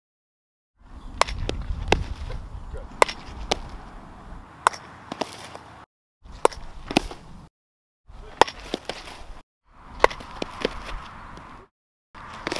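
Softballs smacking into a catcher's mitt and gear and hitting the dirt during blocking drills: a string of sharp single smacks, in short stretches broken by sudden cuts to silence.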